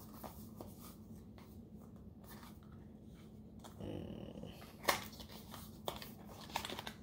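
Small cardboard box and paper packaging being handled and opened: faint rustling and scraping of paperboard, with a few sharp clicks and taps in the second half, over a steady low hum.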